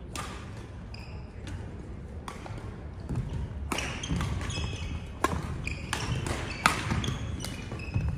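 Badminton rally: sharp racket-on-shuttlecock hits and short squeaks of court shoes on the sports-hall floor, echoing in the large hall.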